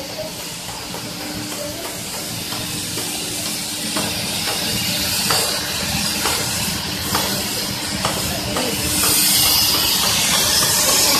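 Copper rod casting and extrusion machinery running: a steady hiss over a low hum with a faint steady tone, and a few light knocks. The noise grows louder about nine seconds in.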